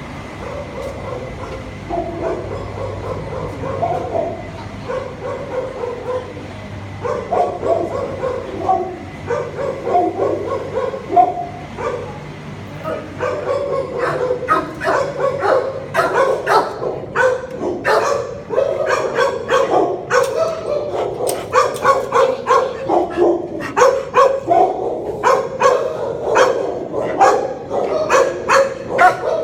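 Many shelter dogs barking in their kennels: scattered pitched barks at first, building about halfway through into dense, overlapping barking from many dogs at once.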